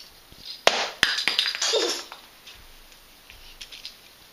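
Christmas tree baubles knocking and clinking as they are handled and dropped, with two sharp knocks about a second in and then a short rattle.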